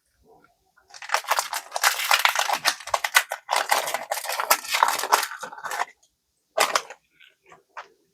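Foil trading-card booster pack wrapper being torn open and crinkled by hand: a dense crackling run of about five seconds, then one short crinkle.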